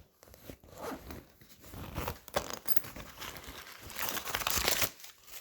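Rummaging inside a fabric backpack: irregular rustling and scraping of fabric and paper, loudest about four seconds in.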